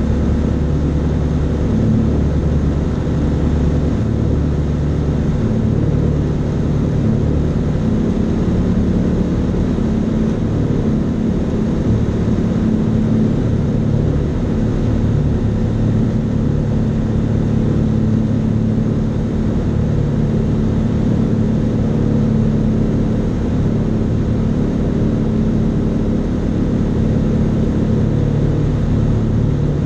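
Fly Synthesis Storch S ultralight's engine and propeller droning steadily in cruise flight, heard from inside the cockpit.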